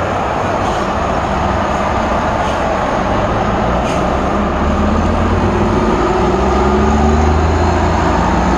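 A column of eight-wheeled armoured vehicles drives past close by, their diesel engines running and heavy tyres humming on the road. From about halfway through, a nearer engine's drone grows louder and rises slightly in pitch.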